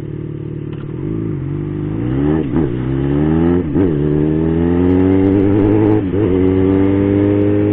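Yamaha XJ6's 600 cc inline-four engine accelerating hard from low speed, its pitch rising through each gear and dropping sharply at about four upshifts before settling into a steady higher run near the end.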